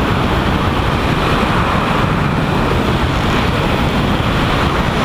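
Helicopter in flight, heard from a camera mounted on the outside of the fuselage: a steady, loud rush of wind on the microphone over the helicopter's engine and rotor noise.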